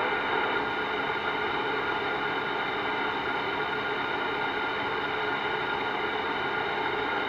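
CB radio receiver hiss: steady static with several faint, unchanging whining tones laid over it on an open channel between transmissions.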